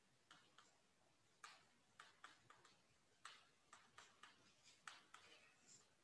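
Chalk writing on a blackboard: faint, irregularly spaced taps and short scratches as the letters are formed.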